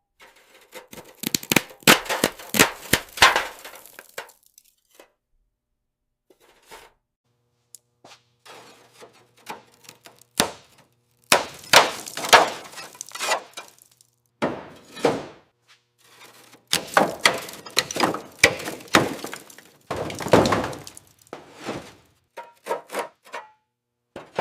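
Hand work on an old metal toy car: clusters of sharp knocks, cracks and clicks in three bursts with short quiet gaps between them.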